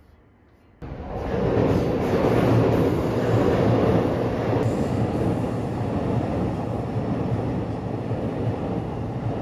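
Commuter train passing overhead on an elevated steel railway bridge, a loud, steady rumble. It starts abruptly about a second in, after near silence.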